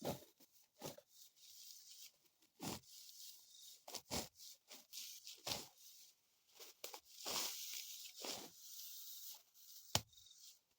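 Dry wheat stalks being cut and gathered by hand: irregular rustling, tearing strokes every second or so, with a single sharp snap near the end.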